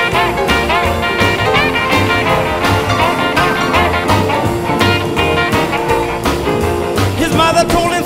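Upbeat background music with a steady beat.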